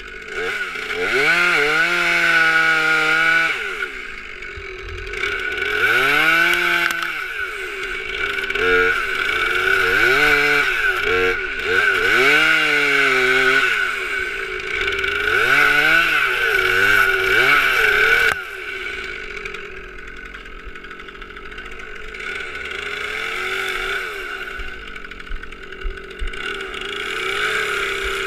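Stihl MS 362 C-M two-stroke chainsaw cutting, its engine speed rising and falling again and again. About 18 seconds in, it drops abruptly to a quieter, steadier running.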